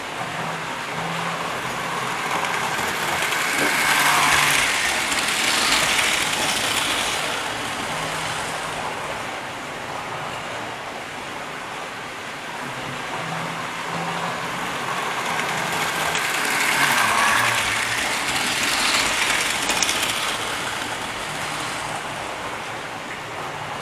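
Model train running round the layout, its wheels and motor on the track growing louder and fading away twice, about thirteen seconds apart, as it passes close by.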